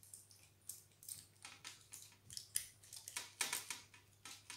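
Aluminium foil around a baked potato crinkling in a series of irregular crackles as hands squeeze and press it while stuffing the potato with cheese.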